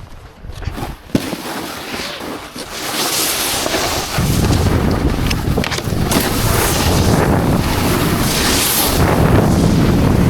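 Snowboard sliding and scraping over snow, with wind buffeting the helmet camera's microphone. A few scattered knocks and scrapes at first, then a loud, steady rush from about four seconds in.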